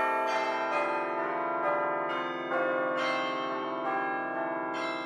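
Outro music of ringing bell-like chimes: overlapping held notes, with a new strike about every second, slowly dying away.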